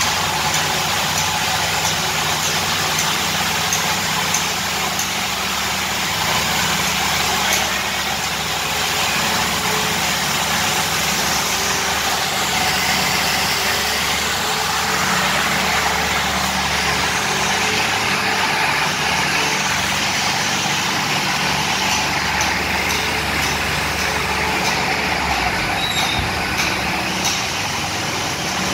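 Heavy diesel construction machinery running steadily, a constant engine drone with broad machine noise over it.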